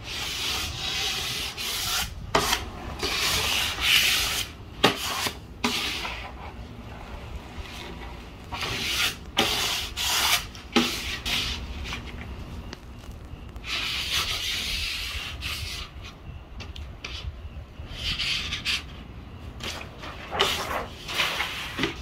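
Wide plastic paint-trimmer used as a squeegee, scraping over adhesive vinyl wrap in repeated strokes with pauses between them. It is pressing the vinyl down onto the plywood board and pushing out air bubbles.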